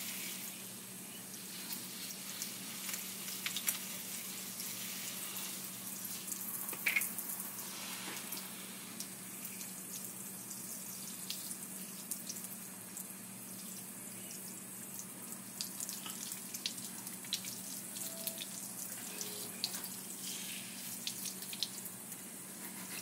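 Tap water running from a gooseneck faucet into a sink, splashing as a newborn's hair is rinsed under the stream, with scattered small splashes and drips. A faint low steady hum sits underneath.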